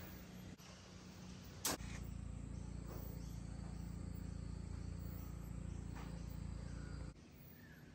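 Faint background: a thin, steady high insect drone over a low steady hum. There is a single click a little under two seconds in, and the hum drops away about a second before the end.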